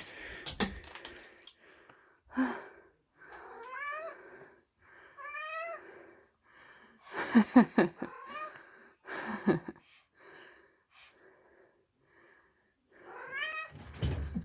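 Korean shorthair cat giving short rising meows, about four of them, between thumps and scuffles of energetic hunting play.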